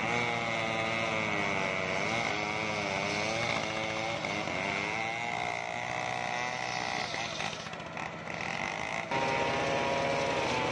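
Homemade engine-driven circular sawmill ripping a coconut-wood log, the motor and big blade running with a pitch that wavers up and down as the log is fed through. About nine seconds in the sound changes abruptly to a steadier, higher whine.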